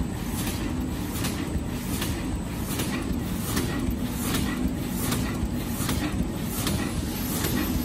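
Roll die cutting machine running, a steady low mechanical hum with a sharp, regular click about twice a second as it cycles through the sheets.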